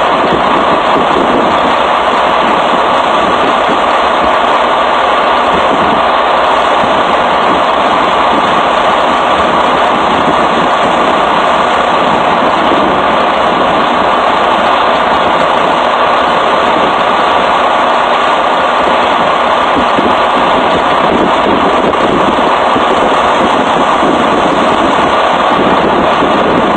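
An engine idling steadily and loudly, an even drone that does not change.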